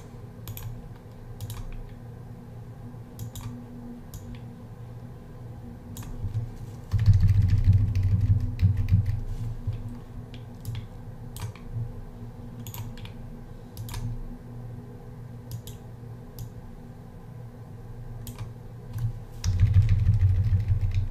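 Irregular clicks of a computer mouse and keyboard, with two stretches of low rumbling handling noise, about seven seconds in and again near the end.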